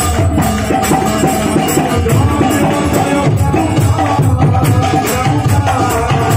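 Bengali devotional kirtan: a harmonium holding its chords and men singing, over mridanga drums playing a steady, busy rhythm.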